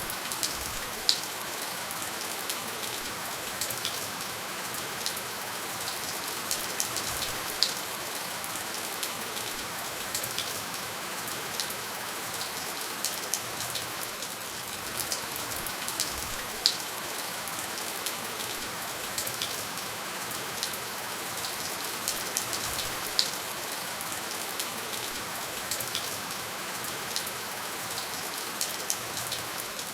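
Steady rain falling, an even hiss with individual drops ticking sharply here and there on top, no thunder.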